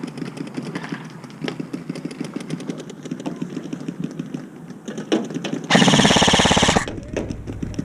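Airsoft gun firing a rapid full-auto burst of about a second, starting about five and a half seconds in, loud and close. Fainter rapid ticking runs before it.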